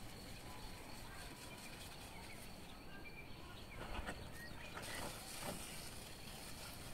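Hand-pump pressure sprayer hissing faintly in spurts as it mists potato plants, loudest over the last two seconds. A few short bird chirps sound behind it.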